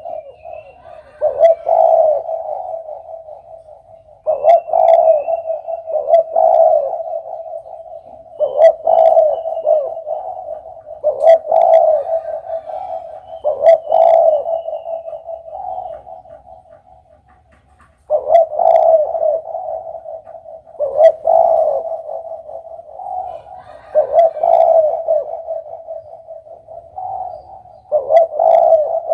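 Spotted dove (derkuku) cooing: low, multi-note coo phrases repeated every two to three seconds, with a short pause about two-thirds of the way through.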